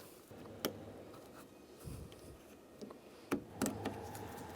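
A few light clicks and faint rubbing as a plastic retaining clip on the door handle's cable is squeezed and worked loose by hand.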